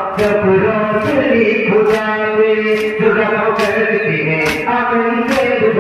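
A male voice chanting a Muharram noha in long held notes, with the sharp slaps of hands striking chests in matam about once a second in time with the chant.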